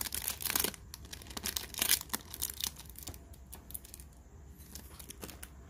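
Handling noises: a quick run of clicks and crinkling rustles for the first two to three seconds, then a few scattered clicks.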